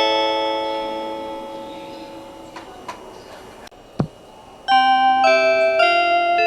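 Onboard announcement chime of the Joban Line limited express Hitachi: the last notes of one chime melody ring on and fade away, a few faint clicks and a short thump follow, and about two-thirds of the way through the next version of the chime starts with a run of notes.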